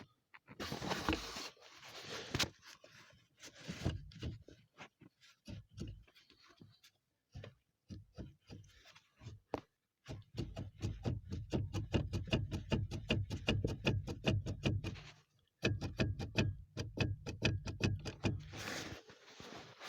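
Hand tools working on a Ford Mondeo Mk2's steering intermediate shaft coupling as it is unbolted. Scattered clinks and scrapes come first, then two long runs of fast, even ratchet-wrench clicking, with a short break about fifteen seconds in.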